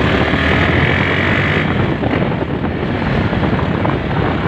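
Honda Sonic motorcycle engine running while riding, with wind rushing over the microphone; the higher hiss eases off about a second and a half in.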